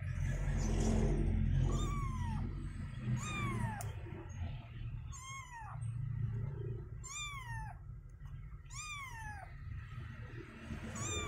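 A kitten mewing, about six short high mews, each falling in pitch, spaced a second and a half to two seconds apart, while it is held for a claw trim. A low rumble runs underneath.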